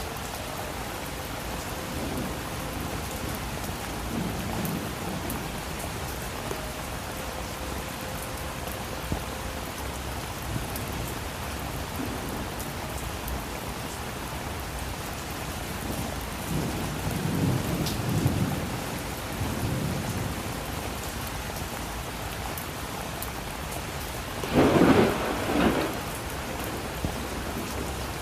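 Steady rain falling, with thunder rolling in low rumbles a few times. The loudest peal of thunder comes near the end.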